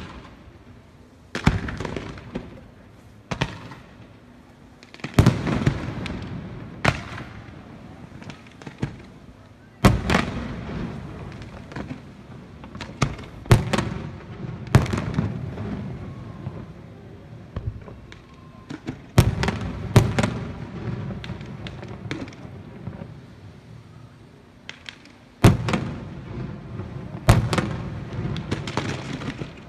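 Aerial fireworks shells bursting, a series of sharp bangs at irregular intervals, some in quick clusters, several trailing off in a long echo.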